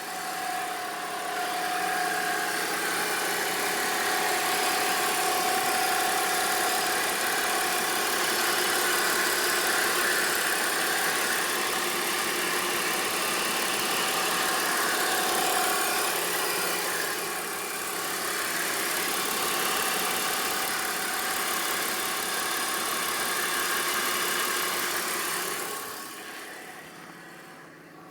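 BMW 325i engine running with a steady whining whistle over it, a noise the owner hears only after a cold start that goes away once the engine warms up. The sound drops off sharply near the end.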